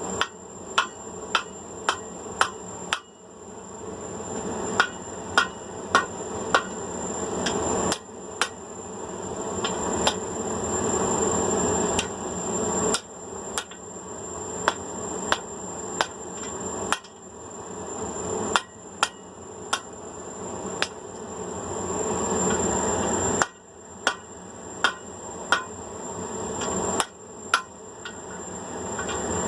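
Blacksmith's hammer striking hot steel bar on an anvil, rounding a forged eye, in runs of quick blows with short pauses. A steady rushing noise swells beneath the blows and cuts off sharply several times.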